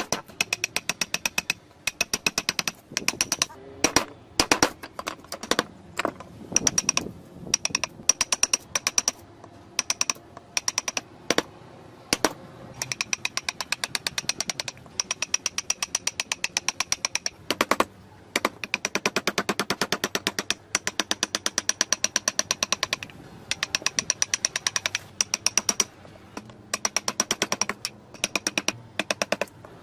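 Rapid mallet taps on a carving chisel driving it through a wooden block, several sharp taps a second in runs broken by short pauses.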